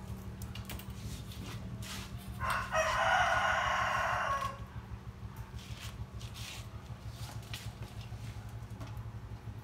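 A rooster crows once, a single long call starting a little over two seconds in and lasting about two seconds. A steady low hum and a few faint clicks run underneath.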